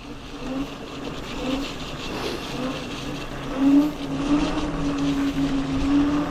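Electric scooter riding along with a steady whine over rough rolling and wind noise. The whine wavers at first and holds a steady pitch from about four seconds in.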